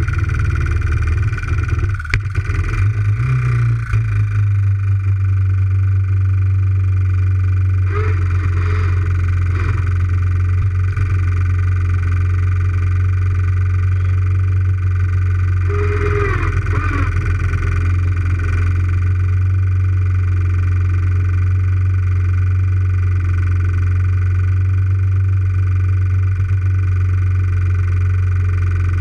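Quad (ATV) engine idling steadily close by, a low even drone that settles to a constant note a few seconds in.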